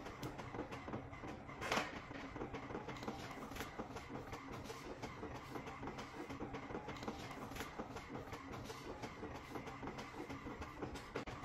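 Desktop printer running a print job, with a steady run of small mechanical ticks over a low hum. There is a brief, louder noise about two seconds in.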